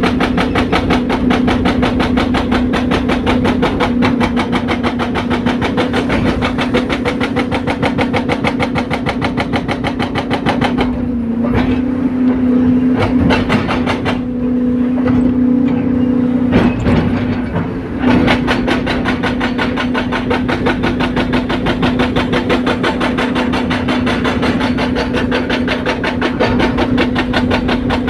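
Excavator-mounted hydraulic breaker hammering rapidly and steadily into asphalt over the excavator's diesel engine. The hammering stops for several seconds in the middle, leaving the engine running on its own, then starts again.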